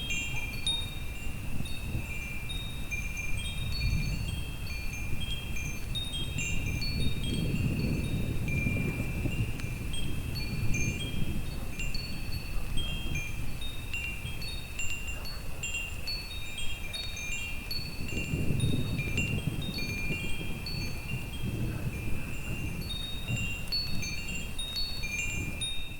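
Wind chimes ringing on and on, many short high notes overlapping, over a low storm rumble of thunder that swells about a third of the way in and again about three-quarters through.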